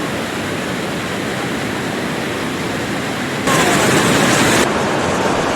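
Steady rushing of a waterfall. About three and a half seconds in, it turns suddenly louder and brighter for about a second, then settles a little louder than before.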